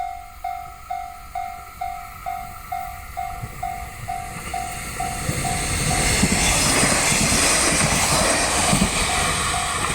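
Japanese level-crossing warning bell dinging steadily about twice a second as a train passes. The rumble and clatter of the train build from about four seconds in and drown out the bell, which comes back through near the end.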